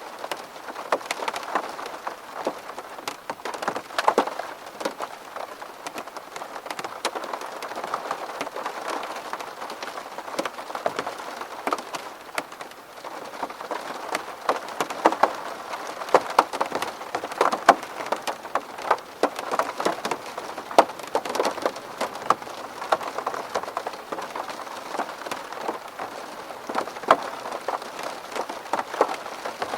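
Rain falling on a window pane: dense, separate drop taps over a steady hiss of rain, with no let-up.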